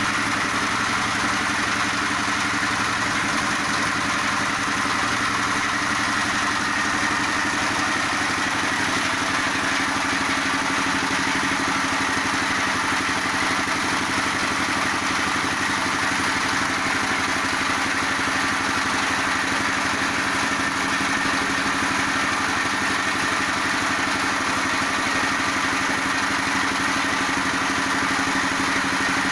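Multifunction feed pellet machine running steadily, grinding and pressing feed: a loud, even machine noise with steady tones and no change in pace.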